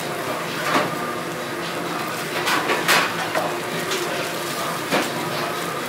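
A knife cutting and knocking on a wooden cutting board while braised pig's trotter is pulled apart, with four short sharp knocks, the loudest about three seconds in, over a steady background hum.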